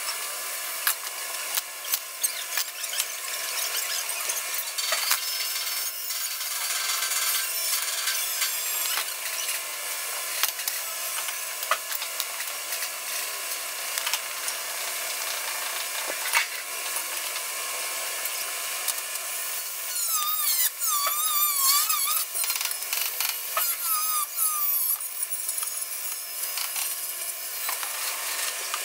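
Metal-shop work noise, sped up by time-lapse: welding and grinding on stainless-steel table frames come through as a steady high-pitched hiss with many sharp clicks. Warbling high squeals come and go about two-thirds of the way through.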